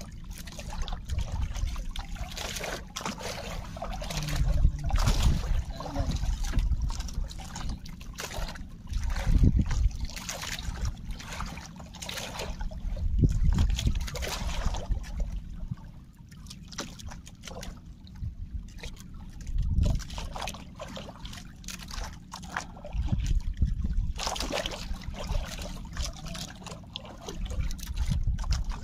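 Sea water sloshing and trickling against the hull of a small fishing boat, coming in irregular surges every few seconds.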